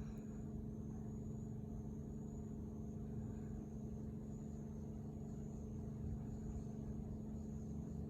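Faint, distant chorus of bear cicadas (kumazemi): a high buzzing that swells and fades about once a second, over a steady low hum and rumble.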